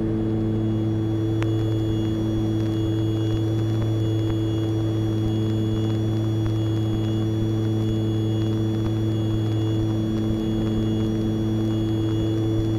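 Steady drone of an Aerostar 602P's twin piston engines and propellers heard inside the cabin, with a faint high whine held above it.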